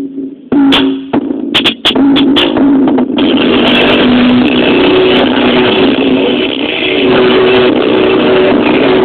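Car stereo playing bass-heavy music at high volume, loud enough to overload the recording into distortion. A few sharp clicks and stutters in the first couple of seconds, then the music runs on steadily.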